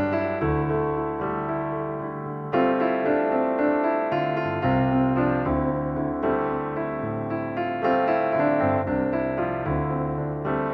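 Background music: piano, with chords struck every second or so over a low bass line.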